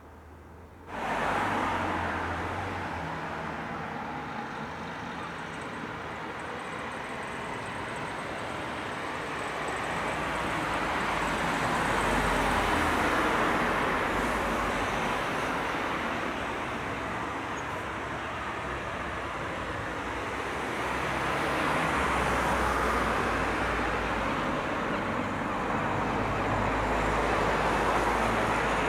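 Steady wash of road traffic, starting suddenly about a second in and swelling and easing slowly as vehicles pass.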